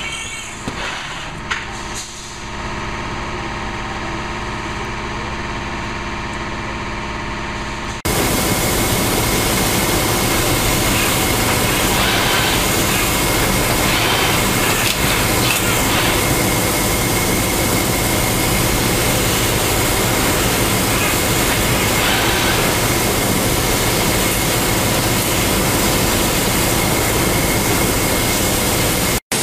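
Machinery running steadily with a hum of several held tones. About eight seconds in it cuts abruptly to louder, denser machine noise, which breaks off briefly just before the end.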